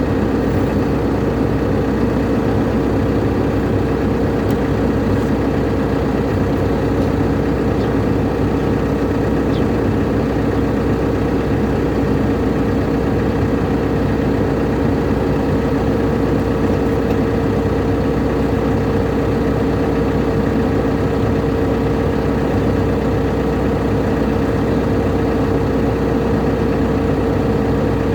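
Excavator's diesel engine running steadily, with a constant whine over it.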